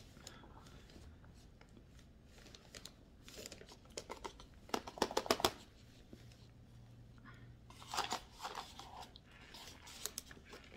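Cardboard packaging being handled, crinkling and crackling in a few short bursts, the busiest about halfway through.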